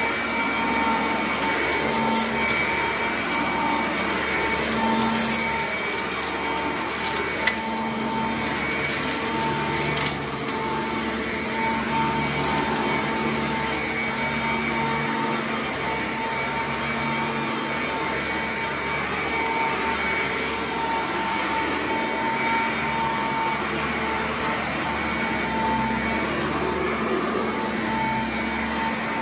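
Sanitaire commercial upright vacuum running steadily as it is pushed over carpet, with a steady motor whine. Through roughly the first half there are scattered crackling ticks of grit being crunched up into the brush head.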